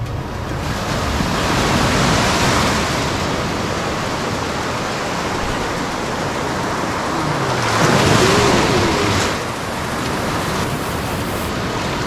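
Strong ocean surf: waves breaking and washing in, swelling louder about two seconds in and again around eight seconds.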